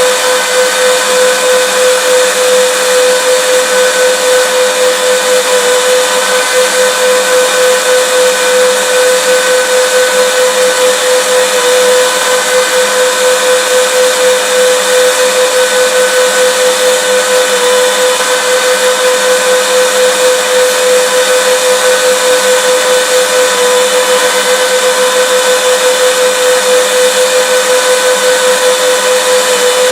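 Vacuum cleaner running steadily: an even rushing hiss with a constant motor whine, unchanging throughout.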